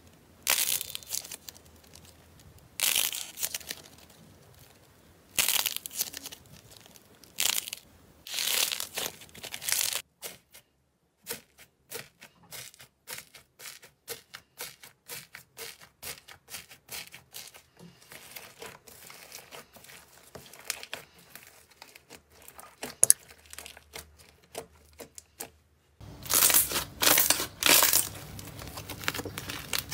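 Slime being squeezed and pressed by hand, making crunchy, crackling squishes. It comes first in separate bursts, then as a long run of fine rapid crackles and pops, then in louder, closely packed squishes near the end.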